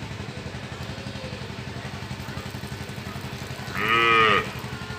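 A small engine idling steadily with a fast, even pulse, and one short animal call about four seconds in.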